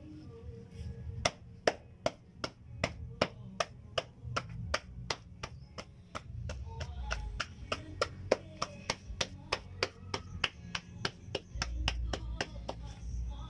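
A steady run of sharp taps or knocks, about two to three a second, starting about a second in and stopping shortly before the end, over a low background hum.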